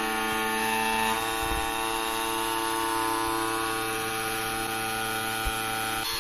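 A homemade dovetail grinder running: its small electric motor belt-drives a spindle of super-glued sandpaper pads, giving a steady hum, while it grinds the top dovetail of a mini lathe cross slide. The hum changes about a second in and again just before the end.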